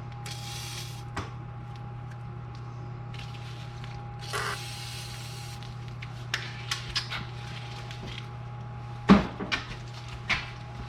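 Work sounds on a car in a garage: two short hisses, then scattered metal clicks, a sharp knock about nine seconds in and a lighter one a second later, over a steady hum.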